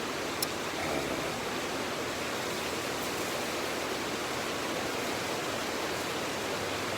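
Mountain stream rushing steadily over rocks, with one sharp click about half a second in.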